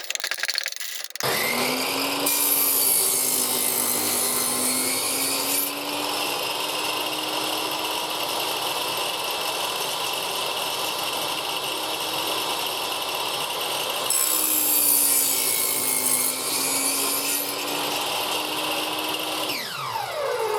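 Table saw (bench saw) motor switched on and spinning up to a steady whine, then two cuts through wood, each a few seconds long, with the blade dragging the motor down during the second cut. Near the end it is switched off and winds down with a falling pitch.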